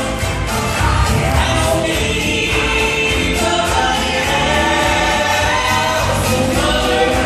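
Male gospel trio singing together into handheld microphones through the church sound system, over musical accompaniment, in sustained held notes.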